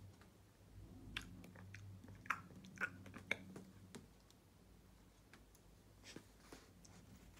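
Faint crunching and chewing of a toasted sandwich, with a handful of sharp crunches between about one and four seconds in, then quieter chewing.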